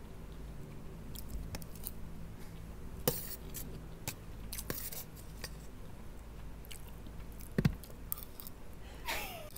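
Metal spoon clinking and scraping against a steel plate with scattered sharp taps, and quiet chewing. A louder dull knock about three quarters of the way through.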